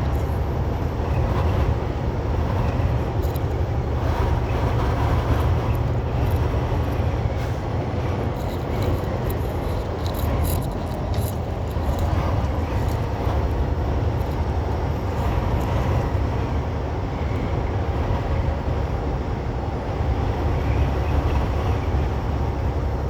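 Steady, deep rumble of a semi truck driving on the highway, heard from inside the cab: engine and road noise holding constant.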